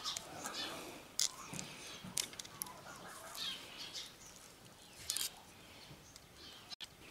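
A few sharp metal clicks of tongue-and-groove pliers being worked to crimp a copper cable lug onto a welding lead, standing in for a proper crimping tool, with birds chirping in the background.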